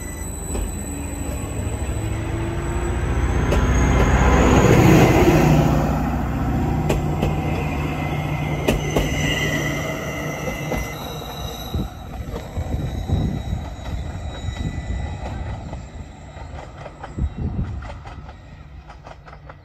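A Greater Anglia Class 755 bi-mode train pulls away under diesel power as its carriages pass close by, running with a low rumble and a steady engine note, and thin high whines from the wheels and running gear. It is loudest about five seconds in and fades as the train moves off down the line.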